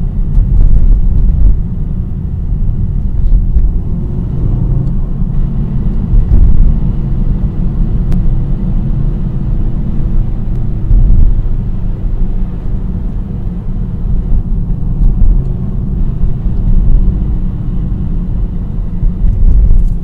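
A car under way, heard from inside the cabin: a steady low rumble with a few faint ticks. This is the rattle the owner blames on the clutch hydraulic line knocking against the chassis leg since a new Stage 3 clutch was fitted.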